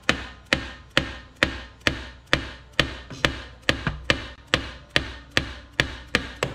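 Dead-blow hammer striking the Harley-Davidson five-speed transmission's main shaft in a steady run of blows, about two a second, each with a short ring. The blows are knocking the shaft slightly out through the gearbox after the shifter forks have been removed.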